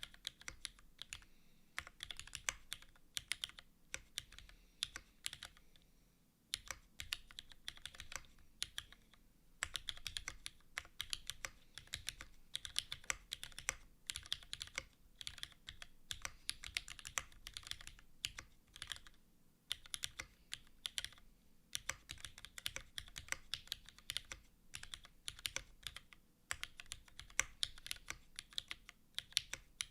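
Continuous fast typing on a Keycult No.2/65 mechanical keyboard with Cherry HG Black linear switches in an aluminium plate, gasket-mounted with no foam, and GMK Posh keycaps: a dense run of keystroke clacks broken by brief pauses, the longest about six seconds in and around the twenty-second mark.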